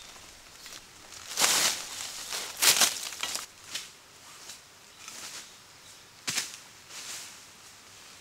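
Dry bamboo leaf litter crunching and rustling in several separate short bursts as a person moves and digs with a hoe on the forest floor, the two loudest about one and a half and nearly three seconds in.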